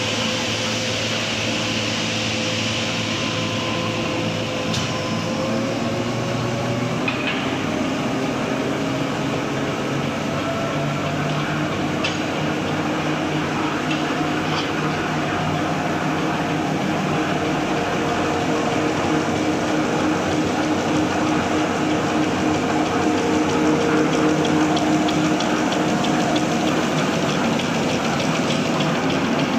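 XY-OQ-7000K double-deck serviette tissue folding machine running steadily: a continuous mechanical hum with several held tones from its drives and rollers, and a few faint clicks.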